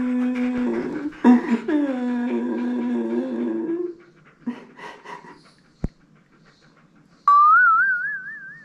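A man's drawn-out fake crying wails, two long ones in the first four seconds, followed by a few short breathy puffs and a single soft knock. About seven seconds in, a German Shepherd puppy gives a high-pitched, wavering whine that rises as it goes.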